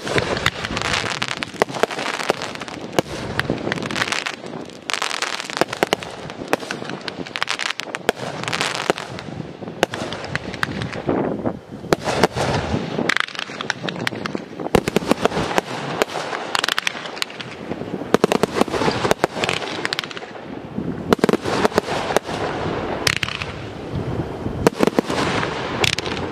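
Aerial fireworks display: a dense, unbroken run of sharp reports and crackling bursts that swells and eases in waves every few seconds.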